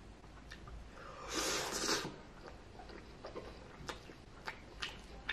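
Spaghetti slurped from chopsticks, picked up close by the microphone: one slurp of about a second, starting about a second in, then soft chewing with scattered wet mouth clicks.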